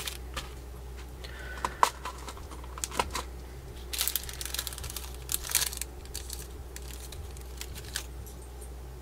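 Clear plastic bag of metal eye pins crinkling and crackling in irregular bursts as it is handled and pins are drawn out. It is busiest about four to six seconds in.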